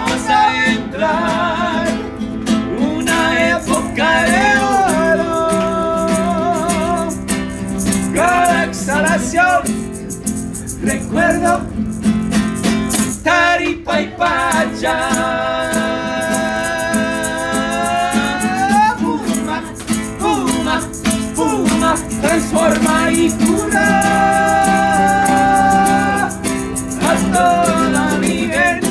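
Two men singing to a strummed nylon-string acoustic guitar, with a wooden maraca shaken along; the singing holds long notes, one of them drawn out for several seconds about halfway through.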